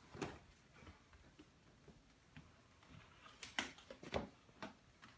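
Quiet, irregular soft scuffs and taps of a cat shifting about with a bag's handle caught around its body. They grow thicker from about three and a half seconds in.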